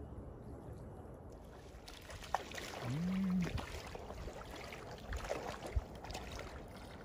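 Lake water splashing at the shoreline as a hooked trout thrashes in the shallows, with a brief low voice sound rising and falling about three seconds in.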